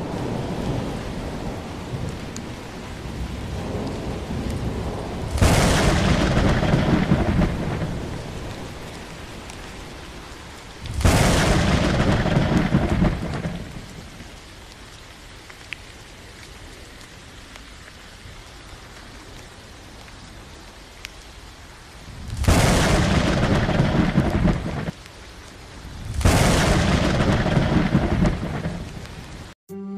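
Thunderstorm: steady rain with four loud claps of thunder, each starting suddenly and rumbling on for two to three seconds. The sound cuts off abruptly just before the end.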